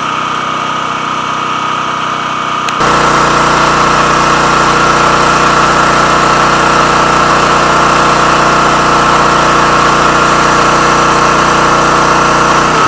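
Portable generator engine running steadily; about three seconds in it suddenly gets louder and deeper, then holds at the new level.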